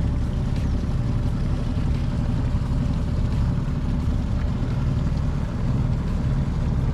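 A boat's engine running steadily under way: an even, continuous low drone.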